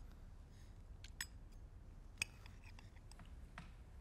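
A few faint, sharp clicks of a metal fork as someone eats a pancake, the sharpest about two seconds in, over a quiet room.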